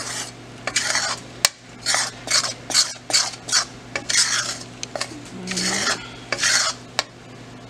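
Metal spatula stirring and scraping roasted chickpea flour (besan) into bubbling sugar syrup in a metal kadhai, in a run of irregular scraping strokes about every half second. Two sharp clicks of the spatula striking the pan, about a second and a half in and near the end.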